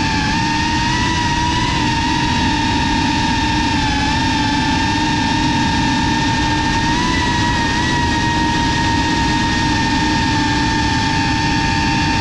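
GEPRC FPV quadcopter's brushless motors and propellers whining steadily, heard through the GoPro mounted on the drone, the pitch dipping and rising slightly with small throttle changes.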